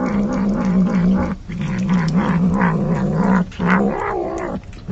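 Domestic cat growling while it bites at a raw fish, a food-guarding growl in long, wavering stretches with short breaks.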